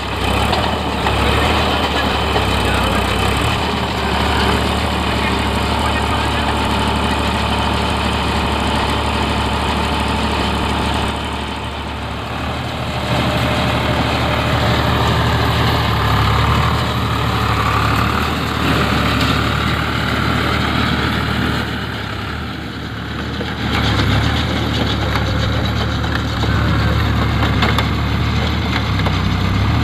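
Eicher 557 tractor's diesel engine running steadily, easing off briefly twice.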